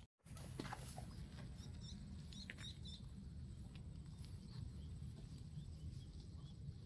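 Cattle tearing and chewing grass: a faint crunching, crackling patter of short clicks. A steady low rumble runs underneath, and a few faint high chirps come about two and a half seconds in.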